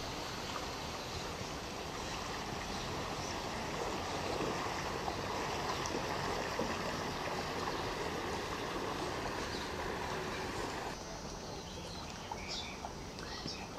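Steady rushing outdoor noise by a canal's water, with no clear motor; it turns quieter at a cut about eleven seconds in.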